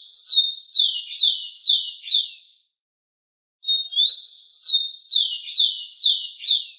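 Rufous-collared sparrow (tico-tico) singing: a short level whistle that slurs upward, then a run of about five quick down-slurred notes. The song ends about two and a half seconds in, and after a gap of about a second the same song comes again in full.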